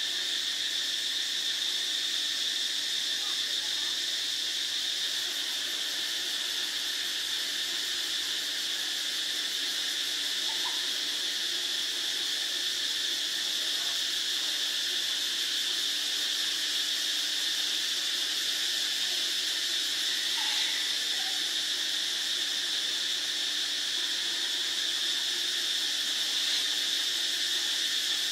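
Steady, high-pitched insect chorus, with a few faint short calls over it now and then.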